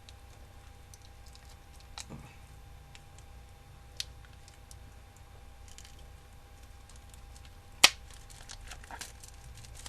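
A trading-card pack wrapper being handled and torn open: crinkling with a few sharp snaps, the loudest about eight seconds in.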